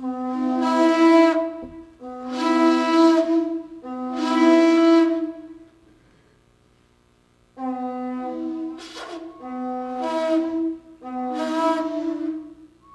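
A horn blown in six long blasts, three and then, after a short pause, three more. Each blast starts on a low note and steps up to a slightly higher one.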